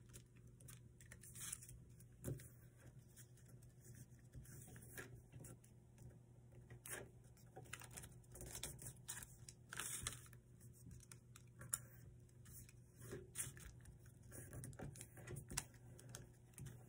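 Faint rustling and crinkling of a sheet of paper being folded and creased by hand, with scattered small ticks and taps.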